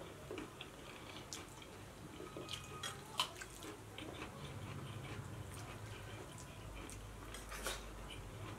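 Close, quiet eating sounds of biryani eaten by hand: fingers squishing and mixing rice on steel plates and mouths chewing, heard as a scatter of small wet clicks and smacks, with a couple of sharper ones about 3 s in and near the end.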